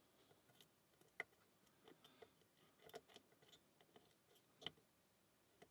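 Faint, scattered metallic clicks and ticks of a lock pick and tension wrench working the pins of a small 20 mm Alpha padlock, a few sharper clicks standing out among very quiet handling.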